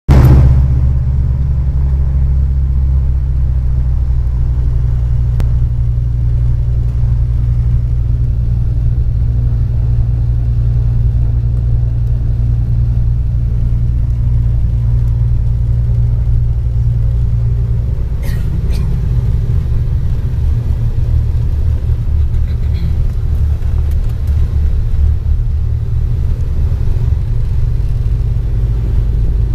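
Cabin drone of a Cape Air Cessna's twin piston engines running steadily, heard from the cockpit as a loud low rumble. About 18 seconds in, the drone changes character and a couple of brief clicks sound.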